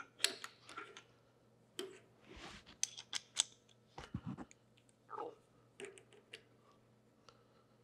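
Hand tapping threads with a tap wrench: scattered metallic clicks and clinks as the wrench is turned on the tap, lifted off and reset, with a short scraping sound and a low knock about four seconds in.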